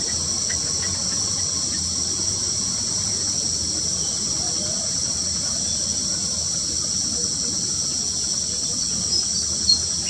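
Steady, high-pitched drone of an insect chorus, unbroken throughout. A couple of faint short chirps come near the end.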